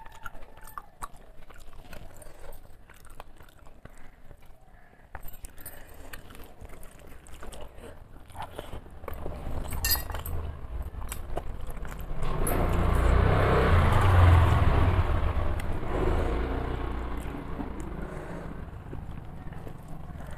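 Eating by hand: fingers mixing rice and fish curry on a steel plate, with chewing and mouth clicks. Past the middle a low rumbling noise swells suddenly, then fades away over several seconds.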